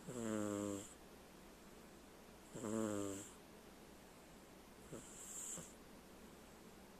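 A sleeping pet snoring loudly, like a person: three low, buzzing snores about two and a half seconds apart, the third fainter.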